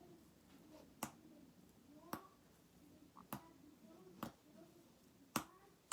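Five sharp clicks, about one a second, over quiet room tone, from handling the camera while getting it to focus.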